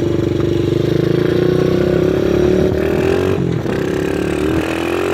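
Pit bike engine pulling under way, its pitch climbing steadily. It drops briefly about three and a half seconds in, then climbs again. The engine runs smoothly on its new high-compression piston, and its stripped exhaust makes it louder.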